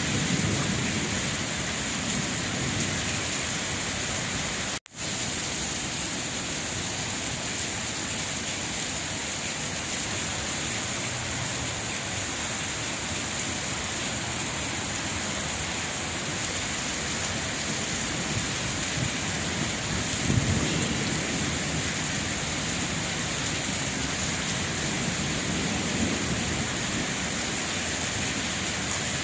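Steady rain falling, an even hiss throughout, with a low rumble about twenty seconds in. The sound cuts out for an instant about five seconds in.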